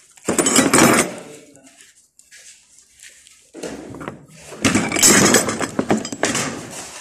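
Loud rustling and rubbing of a handheld phone being moved close to its microphone, in two long bursts: one near the start and a longer one from about halfway on.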